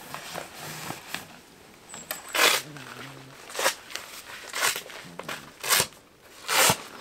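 Crunching footsteps, about one a second, starting a couple of seconds in.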